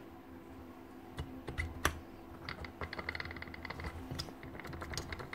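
Steel gears of a Hilti TE905 demolition hammer's gearbox clicking and clinking as they are set into the housing and turned by hand, with a quick run of ticks in the middle as the gear teeth mesh.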